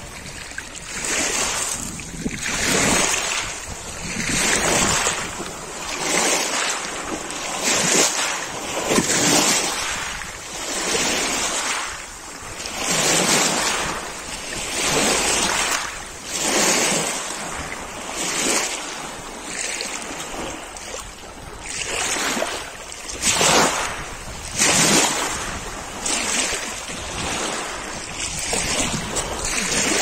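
Small waves washing in and out over a pebble beach, each swash of water over the stones swelling and fading about every one and a half to two seconds.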